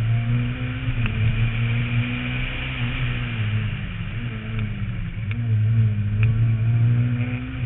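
Renault Mégane rally car's engine under hard acceleration, its pitch rising and falling with the throttle and gear changes, with brief dips about four and five seconds in. Heard from a camera mounted on the roof, with a low wind rumble.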